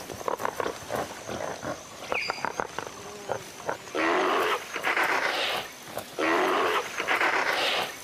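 Greater one-horned rhinos mating: scattered rustling and knocks, then two long, loud, breathy calls about a second and a half each, starting about four and six seconds in.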